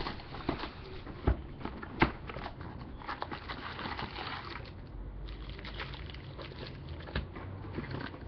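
Plastic shrink wrap crackling and a cardboard trading-card box being handled and opened, with foil card packs shuffled about. There are two sharp knocks about one and two seconds in, and a denser stretch of crackling around the middle.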